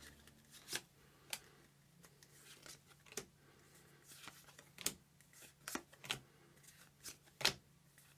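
Trading cards being handled and flicked through one by one, with irregular sharp clicks and snaps.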